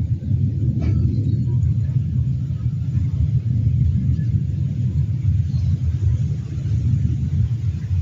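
Strong wind buffeting the microphone: a loud, uneven low rumble throughout, with a short click about a second in.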